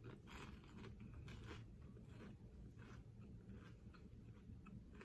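Faint crunching and chewing of an over-crisp waffle, cooked too long in an air fryer: a scatter of small, dry crunches.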